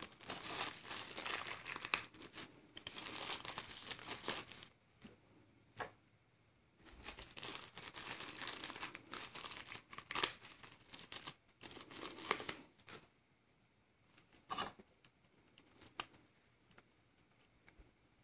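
Thin packaging sleeve and wrapping crinkling and tearing as a phone's wall charger and coiled charging cable are unwrapped by hand. It comes in two long stretches of rustling with a few sharp clicks between and after them, and goes quiet in the last few seconds.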